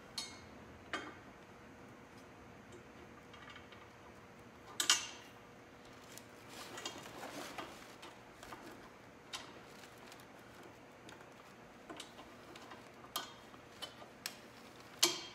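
Small metal clicks and clinks of bolts and washers being fitted by hand into a motorcycle crash bar's lower frame mount, scattered a few seconds apart, the loudest about five seconds in and again near the end, with a soft rustle in between.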